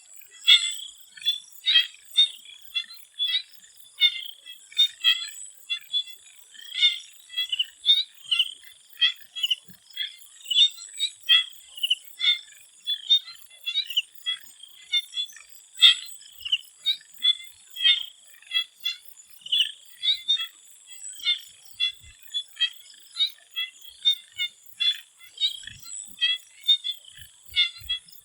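A chorus of swamp frogs: many short calls overlapping, several a second, over a steady high-pitched insect trill.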